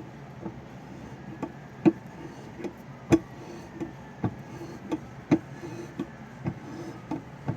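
Irregular sharp metallic clicks and light knocks, one or two a second, from tools and a Time-Sert thread-repair insert being worked into a freshly tapped hole in a cast iron stove door.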